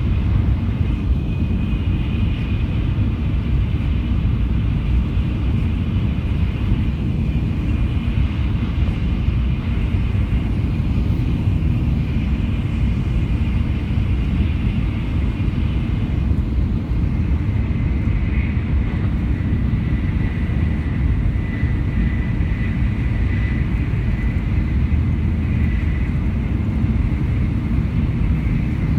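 Shinkansen bullet train running at speed, heard from inside the carriage: a steady low rumble with a faint high whine that drops slightly in pitch about two-thirds of the way through.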